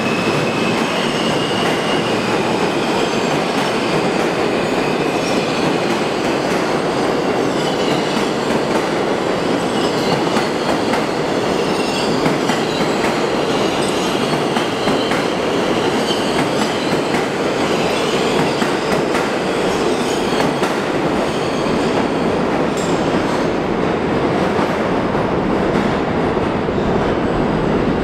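New York City Subway E train of R160 cars running along the track past the platform: a steady, loud rumble of steel wheels on the rails, with faint high wheel squeals now and then.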